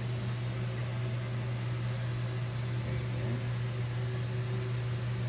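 A steady low mechanical hum that holds unchanged throughout, with no clear knocks or clinks above it.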